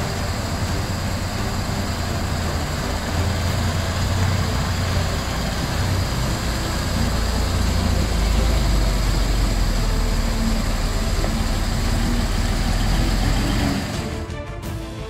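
Magirus Deutz 170D11 four-wheel-drive truck's air-cooled diesel engine running as the truck fords a shallow stream and drives past close by, getting louder about halfway through, over the steady rush of a small waterfall. Near the end this cuts off and music takes over.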